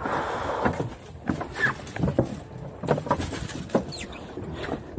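A string of irregular knocks, taps and scrapes on a small fibreglass boat's deck as a freshly landed kingfish and its lure and tackle are handled.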